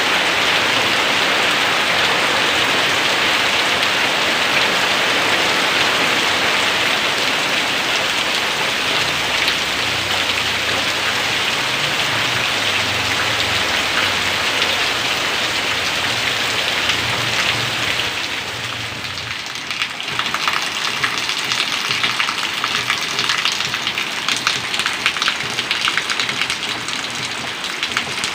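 Heavy rain pouring down in a dense, steady hiss. About two-thirds of the way through it eases slightly, and individual drops start to stand out as a patter of sharp ticks.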